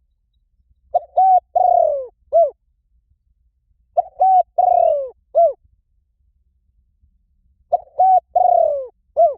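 Spotted dove cooing: three phrases about three seconds apart, each a few short coos and one longer coo that falls in pitch.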